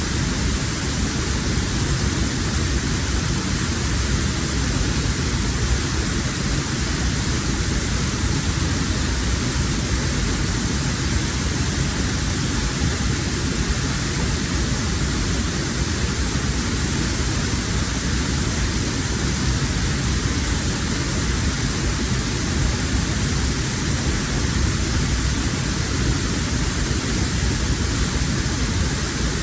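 Heavy waterfall pouring: a loud, steady rush of falling water that never lets up.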